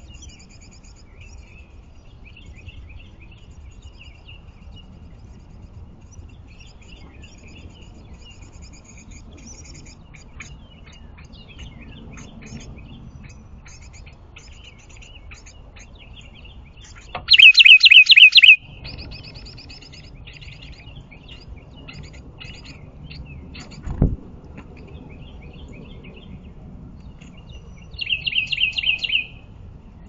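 Wren at its nest box calling in two loud bursts of rapidly repeated high notes, one about 17 seconds in and a shorter one near the end, over faint fast high chirping throughout. A single thump about 24 seconds in.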